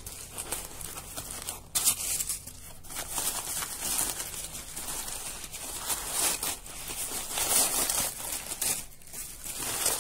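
Brown kraft paper and newspaper packing crumpling, crinkling and tearing as hands pull it out of a parcel: a continuous run of dry rustling with sharper rips here and there.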